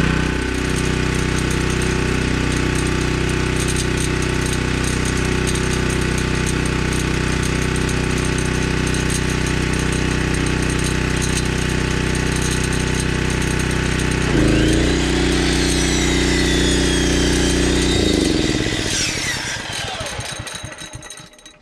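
Honda 8 hp generator engine running steadily; about two-thirds through, an electric miter saw powered from it starts with a rising whine. A few seconds later the engine slows and dies under the saw's load, and the saw winds down with it: the generator stalling once cutting begins.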